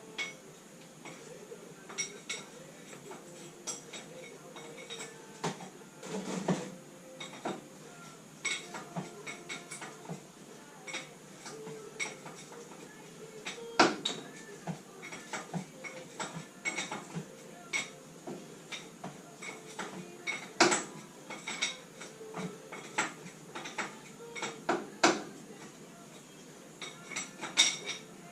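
Metal hand tools clinking and knocking against each other and against metal parts, in irregular single strikes spread throughout, with a few louder knocks.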